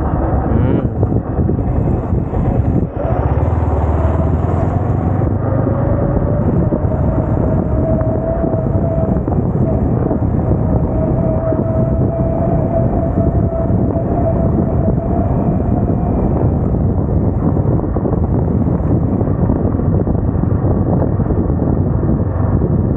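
Yamaha R15M's 155 cc single-cylinder engine running steadily as the motorcycle is ridden, under a steady rushing noise.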